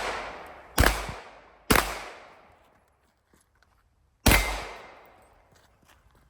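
Three pistol shots, two about a second apart and a third after a pause of about two and a half seconds, each sharp crack trailing off in a long echo.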